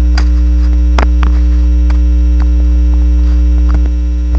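Loud, steady electrical mains hum in the recording, with a few faint clicks. The hum dips briefly near the end.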